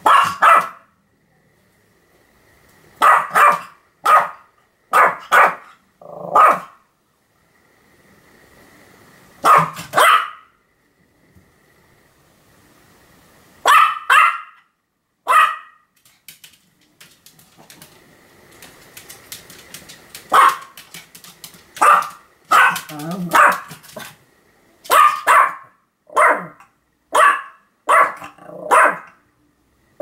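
Pomeranian barking over and over: short, sharp barks, singly and in quick twos and threes, with pauses of a few seconds between bouts and coming faster near the end.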